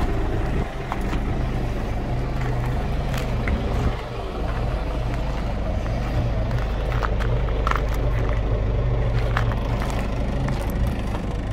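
Scania P 93 ML truck's six-cylinder diesel engine idling steadily, with a few light clicks over it.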